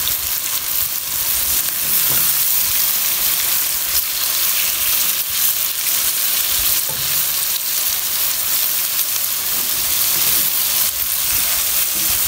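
Sliced onions sizzling steadily in hot oil in a metal pan, frying toward light brown. A wooden spoon stirs them, with a few faint scrapes against the pan.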